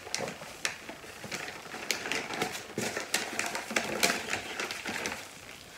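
Kraft paper wrapping crinkling and rustling as it is handled and opened, with irregular crackles and clicks.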